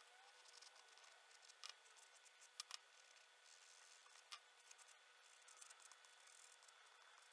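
Very faint scratching of a soft pastel stick on pastel paper, with four light clicks around the middle, over near-silent room tone.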